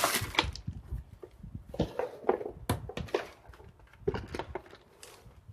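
Keyboard and its packaging being handled and unpacked: irregular rustling, light taps and knocks of plastic.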